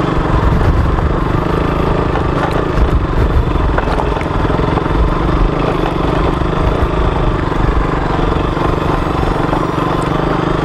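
KTM RC single-cylinder sport bike engine running steadily as the bike is ridden over a rough, stony dirt trail.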